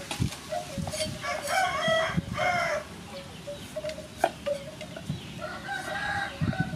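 A rooster crows loudly about a second in and calls again near the end, while a cleaver knocks a few times on a wooden chopping board.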